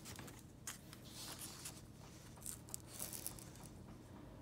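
Faint handling noise of hard plastic graded-card slabs being slid across a cloth desk mat and picked up, with a few soft clicks and rustles.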